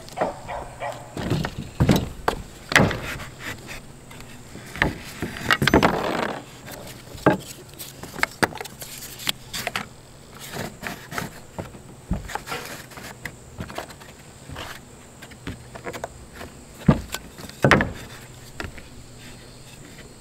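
Wooden furring strips and shim pieces being handled and set down on a roof, giving irregular knocks and clatter, with a few louder wood-on-wood knocks.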